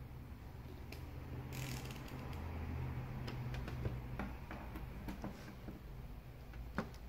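Faint scattered clicks and taps of multimeter test probes and their leads being handled against a TV's sheet-metal back, with a brief rustle about two seconds in, over a low steady hum.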